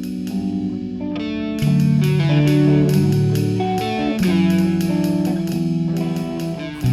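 Background music led by electric guitar, with held notes over a steady drum beat.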